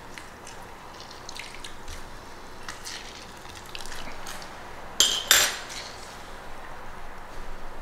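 Orange halves squeezed by hand into a glass measuring cup: the juice squelches and drips, with faint scattered clicks. Two sharp, louder sounds come close together about five seconds in.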